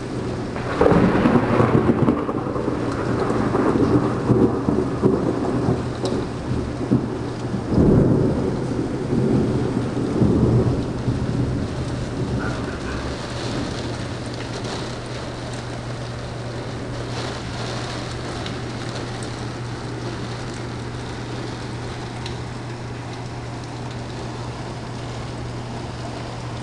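Heavy rain pouring down steadily, with two louder rumbling swells, one about a second in and another about eight seconds in, that then die back to the steady downpour.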